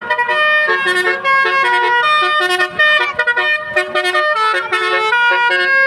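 Telolet horn, a set of multi-tone air horns, playing a quick tune of short notes with several tones sounding at once.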